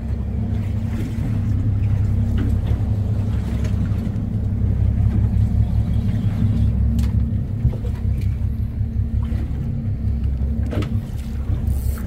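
Fishing boat's engine running steadily, a deep, even hum.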